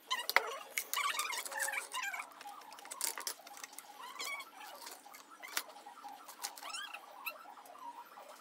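Hands handling the plastic housing and parts of a solar street light, giving scattered clicks and taps, with short, high squeaky chirps heard throughout.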